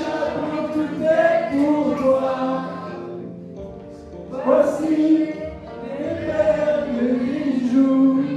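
A man and a woman singing a song in French together into handheld microphones at karaoke, amplified over the room's sound system. There is a short lull a little past three seconds in before the next sung line.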